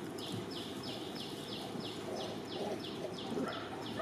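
A high, short chirp repeated evenly about three times a second, each chirp falling slightly, over steady background noise.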